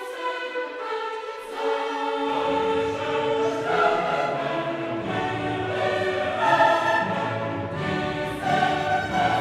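Background choral music with orchestra, sustained sung chords; lower voices and bass come in about two seconds in.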